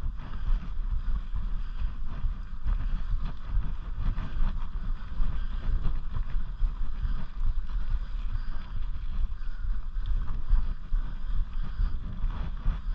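Mountain bike rolling along a dirt singletrack: wind buffeting the camera microphone and the tyres rumbling over the trail, with scattered small clicks and rattles from the bike.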